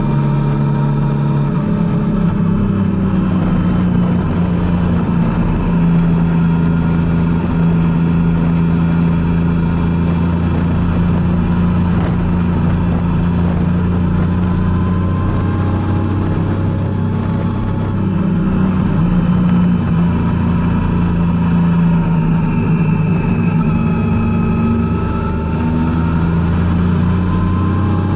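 Triumph Tiger 800's three-cylinder engine running under way on the open road, holding a steady pitch for long stretches, with the revs shifting a little a couple of times.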